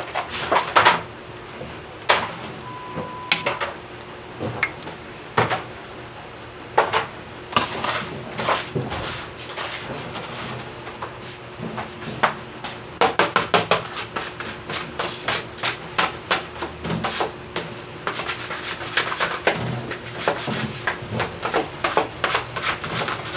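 Hands working flour in a large stainless-steel mixing bowl, knocking and scraping against the metal sides: irregular knocks and clatters, thickest around the middle and near the end, over a faint steady hum.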